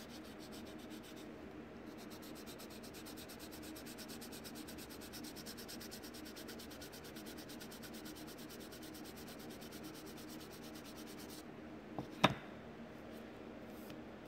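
Sanding sponge rubbing over the primed plastic of a scale-model car-body fender in quick, even back-and-forth strokes, light sanding of the primer. Near the end there is a single sharp knock, the loudest sound here.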